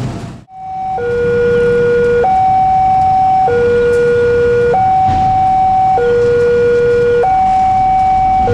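Railway level-crossing warning alarm sounding: an electronic two-tone signal that alternates between a higher and a lower note, each held about a second and a quarter, starting about a second in. It is the signal that the crossing is closing for an approaching train.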